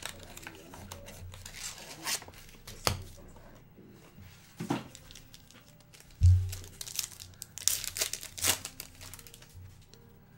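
Baseball card pack wrappers being handled and torn open: crinkling and tearing in short rustling bursts, with a few sharp knocks, the loudest about six seconds in.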